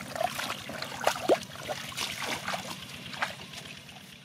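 Shallow muddy water splashing and sloshing, with many small splashes and clicks as feet wade through a flooded paddy field. There are short squeaks about a second in, and the sound fades out at the end.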